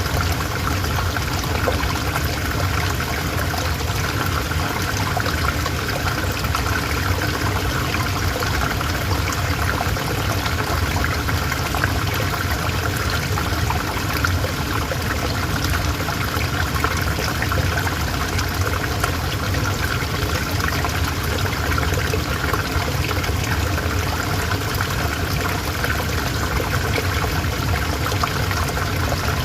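A calm river flowing, a steady, unbroken rush and trickle of water.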